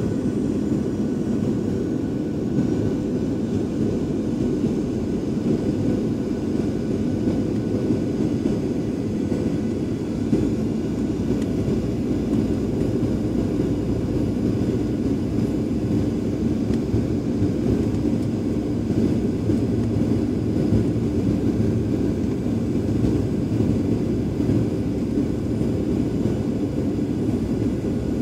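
Steady jet engine and airflow noise of a Boeing 737 airliner heard inside the cabin at a window seat during the approach: a low, even rumble with a faint hum above it and no change in pitch.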